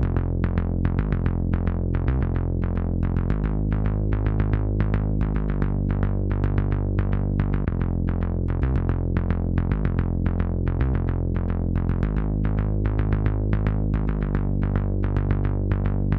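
Synthesizer background music: a fast run of plucked keyboard-like notes, about three to four a second, over a steady held bass.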